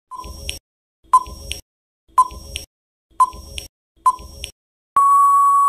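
Quiz countdown timer sound effect: five short ticking blips about a second apart, then one long steady beep near the end as the countdown runs out.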